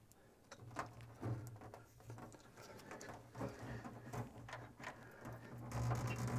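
Faint handling sounds: soft clicks, ticks and rustling as a self-adhesive LED strip is pressed by hand onto an aluminium enclosure rail, over a low hum. The rustling grows louder near the end.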